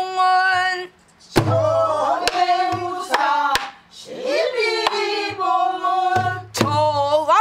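A woman singing pansori in slow, bending sung phrases, accompanying herself on a buk barrel drum. A handful of sharp stick strikes and a few deep thumps of the palm on the drumhead fall between and under the phrases.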